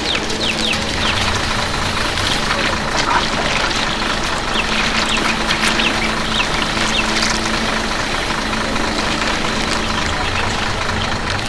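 An engine running with a steady hum under a loud, dense noisy background, with many short, high chirps scattered through it.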